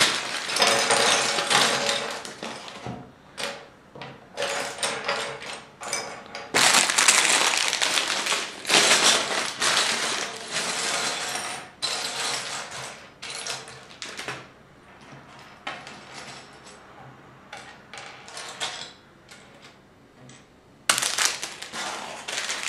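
Plastic bags full of LEGO bricks crinkling and rattling as they are handled and emptied, with small plastic pieces clattering together in irregular bursts. It is quieter for a few seconds shortly before the end.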